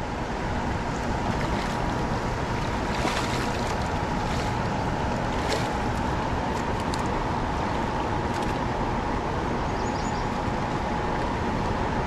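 Steady rush of river water below a dam, with a few brief splashes from a hooked smallmouth bass thrashing at the surface.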